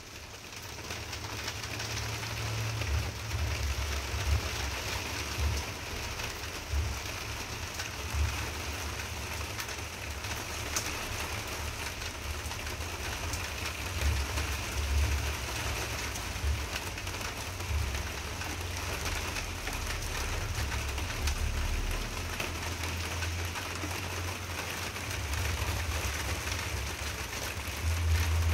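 Steady rain falling, with a deep low rumble swelling and fading underneath it.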